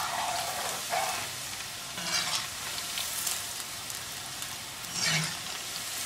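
Crescent-shaped maida-dough mathri deep-frying in hot oil in a small kadai, a steady sizzle near the end of frying as they turn light brown. A metal slotted spoon stirs them, giving a few brief louder scrapes and swishes, the strongest about five seconds in.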